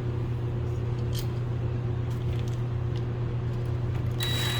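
Steady low mechanical hum, like an engine or motor running, with a faint higher tone held above it; a short hiss starts near the end.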